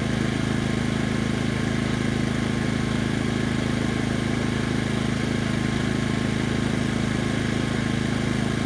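Honda EB2800i inverter generator running steadily in standard (non-eco) mode, a pretty quiet, even engine hum with no change in speed.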